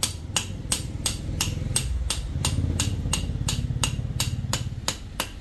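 Steady metal-on-metal hammering, about three sharp strikes a second: a steel pipe beating on a socket used as a drift over a Honda Activa gearbox shaft to drive its bearing. A low rumble runs under the strikes through the middle.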